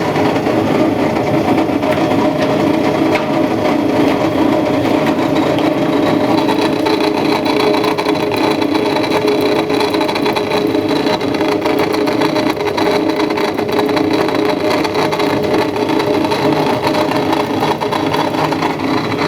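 Indesit WS84TX washing machine on its spin cycle, with the drain pump grinding steadily throughout; a higher whine joins in about six seconds in. The grinding comes from the pump's off-centre, loose shaft wobbling: a worn pump that needs replacing.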